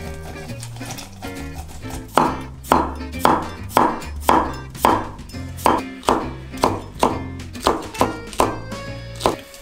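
Cleaver chopping cucumber and green chillies on a wooden cutting board: a steady run of about fourteen crisp chops, roughly two a second, starting about two seconds in, over background music.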